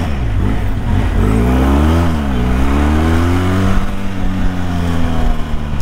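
Benelli TRK 502X's parallel-twin engine pulling the bike up through the gears: the revs climb, drop at a gear change about two seconds in, climb again more slowly, then level off.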